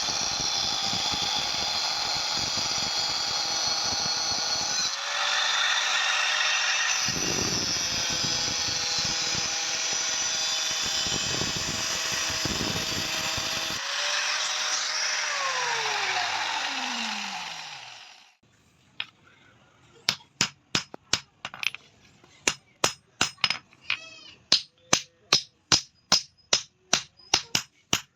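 A spinning machine whirs steadily, then coasts down in pitch and stops. After a short pause, hammer blows on metal begin, about two a second, each one ringing.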